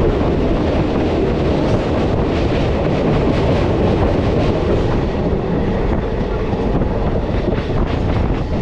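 Diesel multiple unit (DMU) passenger train running along the line: a steady rumble of the carriage and its wheels on the rails, heard from an open window.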